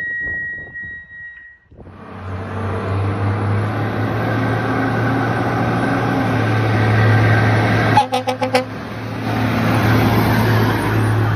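A steady high alert tone cuts off about a second and a half in, then the 1991 Pierce Dash heavy rescue truck's diesel engine runs loud and steady as the truck pulls out. About eight seconds in, its horn sounds a quick run of four or five short blasts.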